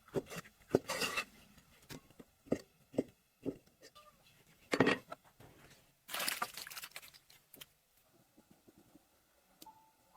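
Food-preparation handling sounds: scattered sharp knocks and clicks with a few short rasping bursts, the longest about 6 seconds in, lasting about a second.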